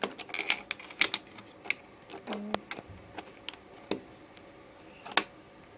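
Small plastic LEGO bricks clicking and rattling as they are handled and pressed together. A quick run of clicks comes in the first couple of seconds, then single clicks every half second or so.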